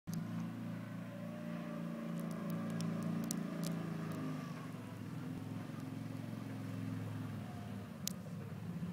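CFMOTO Terralander 800 side-by-side's engine running steadily as it pushes a snow plow blade through the snow, with a few sharp clicks.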